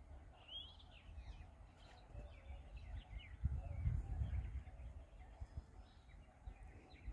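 Small birds chirping in short high calls, over a low, uneven rumble of wind on the microphone that is strongest about three and a half to four and a half seconds in.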